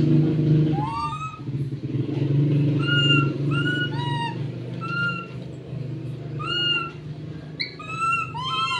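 Baby macaque crying in fear: a series of short, high-pitched, arched cries, about one a second, coming closer together near the end. A steady low hum runs underneath.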